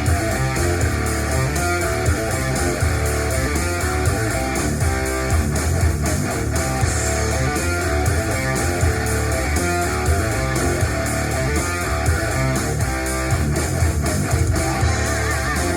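Music led by guitar, with a strong steady bass line.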